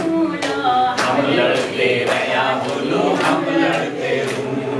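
A small group singing a Kumaoni folk-protest song in unison chorus, with hand claps keeping a steady beat about twice a second.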